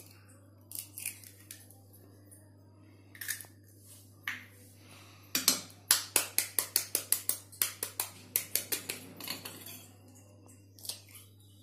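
Metal spoon tapping on raw eggshells to crack them: a few single taps, then a quick run of sharp taps, about four a second, in the middle, and one more near the end.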